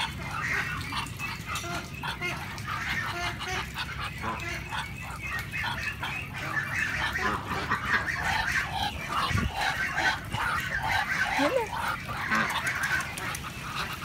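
Muscovy duck calling close up: a string of short, soft repeated calls, steadily for a few seconds in the middle at about two a second, with a falling call near the end.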